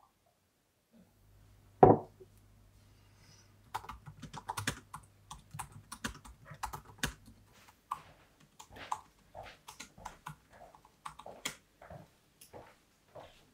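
A single loud knock about two seconds in, then typing on a laptop keyboard: quick, irregular key clicks from about four seconds in.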